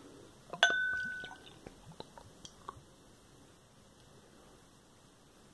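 A glass beer glass is tapped once in a toast, giving a sharp clink and a short ringing tone that fades over about a second. A few faint clicks of handling follow.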